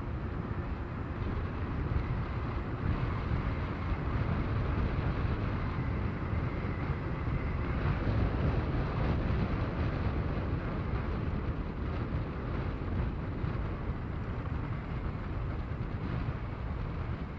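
Wind rushing over the microphone together with road noise from moving fast along an asphalt road: a steady, deep rush with no distinct events, swelling slightly about halfway through.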